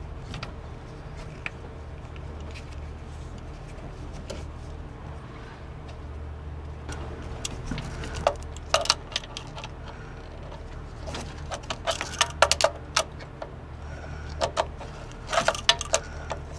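Metal tools and brass fittings clinking and tapping while a fuel pressure sensor line is threaded onto a diesel engine's fuel filter banjo bolt and tightened. The clinks come in short clusters through the second half, over a steady low hum.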